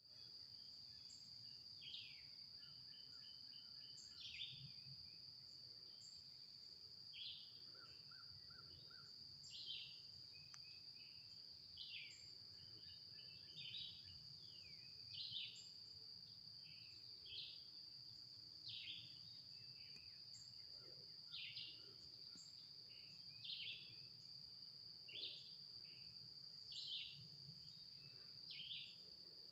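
Faint woodland sound: a bird calling over and over, a short falling note about every one and a half to two seconds, over a steady high-pitched insect drone, with a few quick runs of chirps from other birds.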